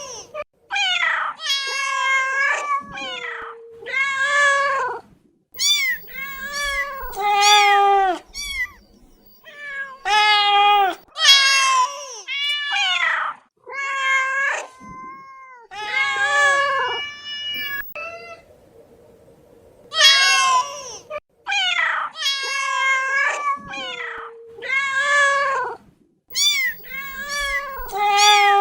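Domestic cat meowing over and over: a long run of loud, drawn-out meows, each sliding down in pitch at its end, with short pauses between them.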